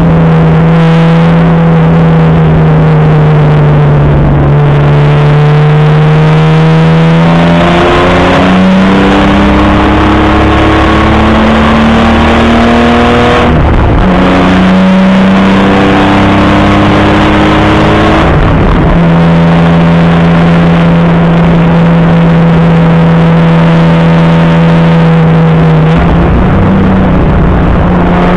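Opel Commodore A's straight-six racing engine heard onboard, running hard at high revs. Its pitch climbs and holds through the laps, with short breaks in the note about halfway through and again a few seconds later.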